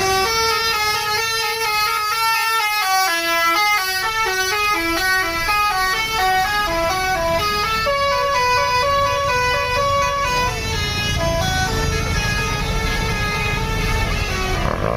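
A bus's musical 'basuri' telolet horn playing a quick tune, with a new note about every quarter second. A low rumble underneath grows louder about halfway through.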